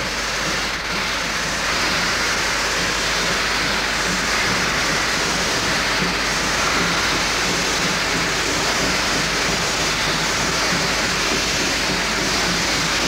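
Class 01 express steam locomotives hissing steadily: a loud, even rush of escaping steam, with a faint low pulsing underneath.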